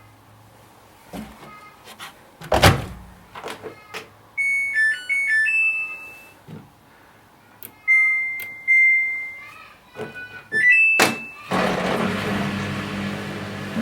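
Washing machine being started: a door-like thunk, a short stepped melody of electronic beeps as it powers on, long button beeps as a program is chosen, another clunk, then near the end the machine starts running with a steady rush and low hum.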